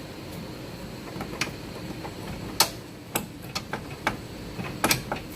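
A series of irregular sharp clicks and knocks as strut parts and tools are handled and fitted into place, the loudest about halfway through and a quick cluster near the end, over a steady background hum.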